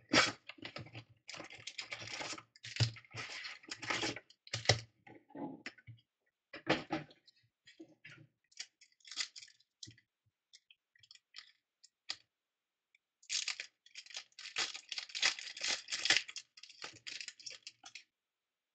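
Cardboard trading-card box and foil card packs being handled, crinkled and torn open: irregular bursts of rustling and tearing, sparse in the middle and dense again later on, with cards being slid and shuffled by hand near the end.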